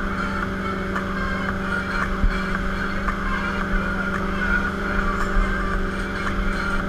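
Wake boat's inboard engine running at a steady cruising drone, with the wake's churning water rushing close by. There is a brief bump about two seconds in.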